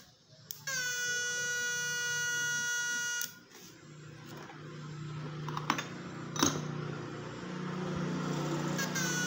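Homemade MOSFET fish-shocker inverter whining through its transformer: a high-pitched tone with many overtones starts about half a second in and cuts off after about two and a half seconds. A hiss that grows louder follows, with two sharp clicks. The whine starts again near the end.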